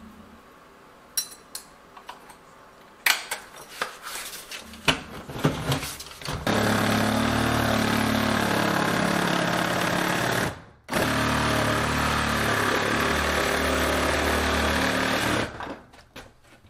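Reciprocating saw cutting a round hole through a plywood subfloor: a few clicks and knocks of the blade being set, then the saw runs loud and steady from about six seconds in, stops for a moment near ten seconds, runs again and stops near the end as the cut-out is finished.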